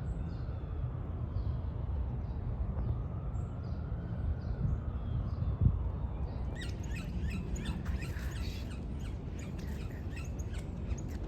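Small birds chirping over a steady low rumble: faint at first, then from about six and a half seconds in many quick, short chirps crowd together. A single sharp knock stands out a little before the chirping thickens.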